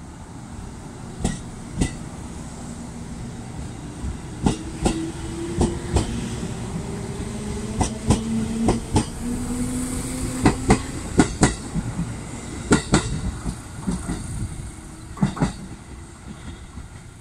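JR Kyushu 787-series electric train moving along a station platform, its wheels clacking over rail joints, with a motor whine that rises in pitch as the train picks up speed.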